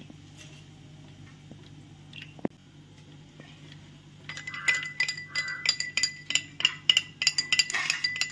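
Metal spoon stirring a drink in a glass tumbler, clinking rapidly and repeatedly against the glass from about four seconds in. Before that, a low steady hum and a single knock.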